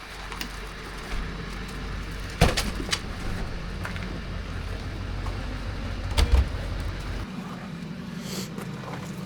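Vehicle engine running slowly with a steady low rumble. There are sharp knocks about two and a half and about six seconds in, and the engine note drops off about seven seconds in.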